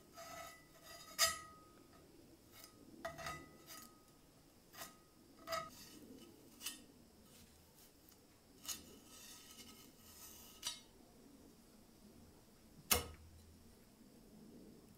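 Thin metal spatula scraping filler across a steel plate: a scattered series of short scrapes and light metallic clinks, several with a brief ringing tone. About 13 seconds in comes a single sharp knock, the loudest sound.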